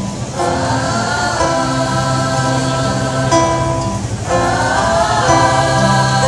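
A mixed youth choir singing in held, sustained phrases, with an acoustic guitar accompanying. The phrases break briefly just after the start and again about four seconds in.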